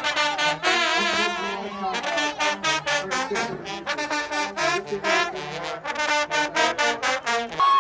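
Marching band brass (trombones and trumpets) playing a tune over a quick, steady drum beat.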